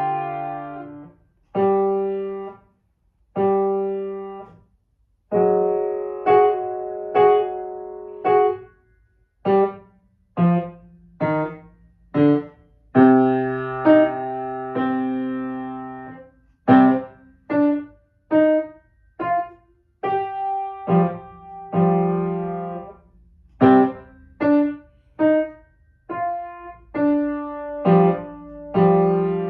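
Piano being played: short, detached notes and chords that fade after each strike, with brief pauses between phrases early on and a busier run of notes after that.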